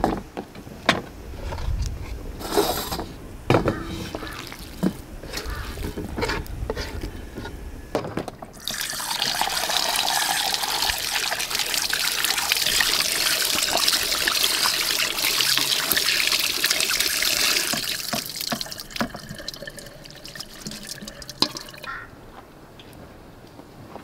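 Tap water running into a stainless steel colander as raw diced meat is rinsed by hand: a steady hiss that starts about eight seconds in, runs for about ten seconds, then stops. Before it come a few knocks and clinks.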